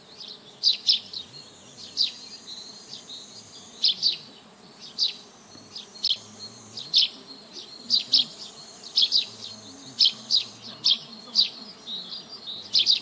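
Honeybees buzzing faintly as they come and go, under short high bird chirps that repeat about one to two times a second and are the loudest sound.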